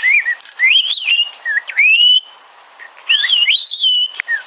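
Rainbow lorikeet whistling and chirping in quick, wavy notes that glide up and down, in two runs with a short pause a little past halfway.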